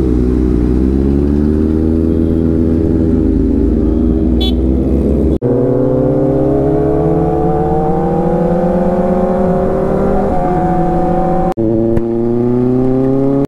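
Kawasaki ZX-6R inline-four engine running loud through an aftermarket exhaust with its dB killer removed, its pitch rising as the bike accelerates. The sound breaks off abruptly twice, about five and a half seconds in and near the end.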